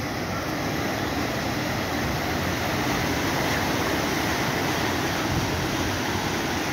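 A muddy river in flood rushing past concrete causeway blocks: a steady, unbroken noise of turbulent water.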